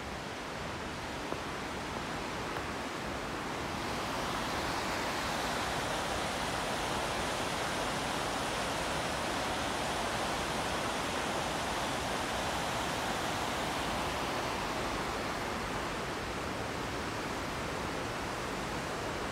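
Steady rush of whitewater on the Sol Duc River tumbling over rocks. It grows louder about four seconds in and eases a little near the end.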